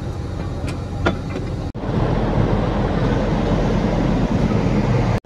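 Steady low rumbling noise, with a couple of sharp metal clicks around a second in as the rescue boat's davit release hook is handled. The noise breaks off sharply about 1.7 s in and goes on denser and louder.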